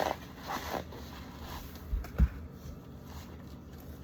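Handling noises: a few light knocks and bumps, the loudest pair about two seconds in.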